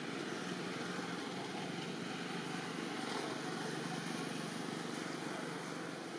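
Steady outdoor background noise with a faint low hum that comes and goes.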